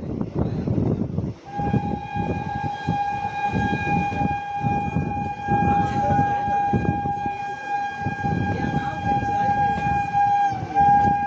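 Train running with a low rumble and clatter from the wheels. From about a second and a half in, a train horn sounds one long steady blast at a single pitch, wavering briefly near the end.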